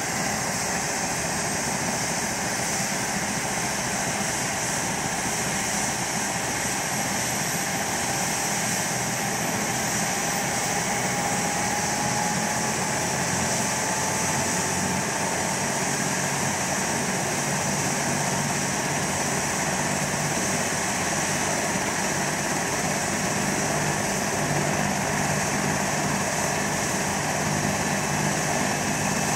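BK 117 rescue helicopter's turbine engines running on the ground before lift-off, a steady roar with a whine that rises slowly in pitch over the first half. A lower hum comes in more strongly near the end.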